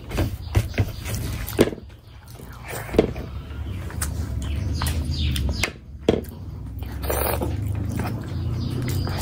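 Close-miked chewing of a mouthful of rice and curry, with wet lip smacks and sharp mouth clicks at irregular moments, and fingers squishing rice on a plate.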